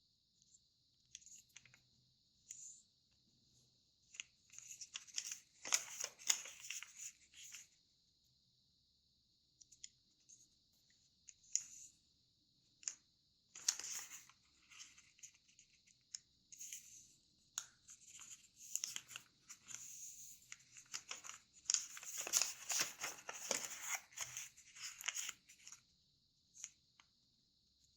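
Square of origami paper being folded by hand: corners brought to the center and the creases pressed down, giving intermittent rustling and crinkling in a few bunches, the longest near the end, over a faint steady hiss.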